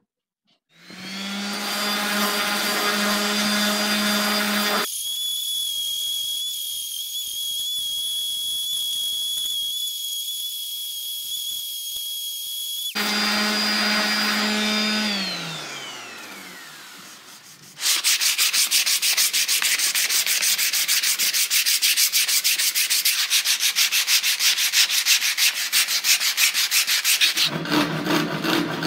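An electric random orbital sander starts about a second in and runs on an ash hatchet handle, its pitch shifting while it works, then winds down with a falling whine. After a short pause comes a fast, loud back-and-forth rasping as the handle is rubbed by hand.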